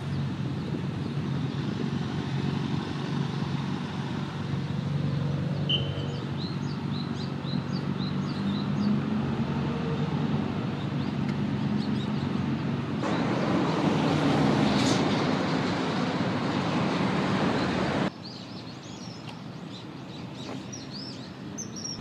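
Steady low rumble of distant traffic, with a louder wash of noise that stops abruptly about three-quarters of the way through. Over it a small bird gives series of short, high chirps, mostly in the first half and again near the end.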